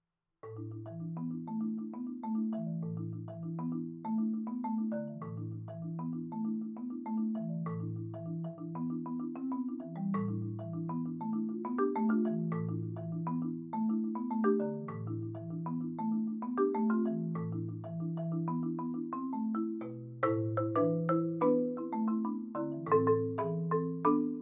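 Solo four-mallet Bergerault concert marimba music that begins about half a second in: a steady repeating pattern of low bass notes with higher notes played over it. It grows louder and busier about twenty seconds in.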